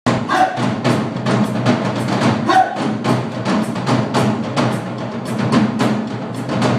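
Live percussion ensemble: several drummers beating out a fast, steady rhythm on drums and cymbals, about four to five strikes a second.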